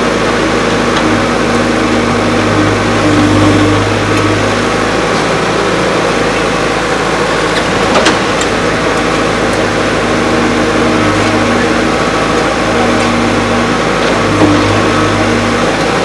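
CASE 770 EX backhoe loader's diesel engine running steadily while the backhoe arm digs, with a sharp knock about halfway through and a smaller one near the end.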